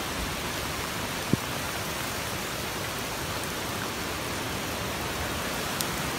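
Heavy rain pouring steadily onto a flooded pond and trees in gusty hurricane wind, an even hiss. A single short knock about a second in.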